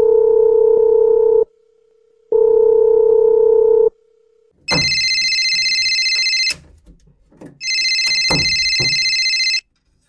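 Electronic tone sound effect, like a phone: two long, steady low beeps of about a second and a half each, then two shrill ringing tones of about two seconds each.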